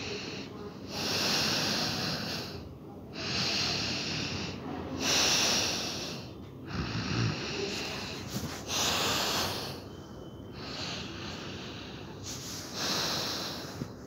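A sleeping person snoring: a run of loud, airy breaths about every two seconds, one with a low rattle about seven seconds in.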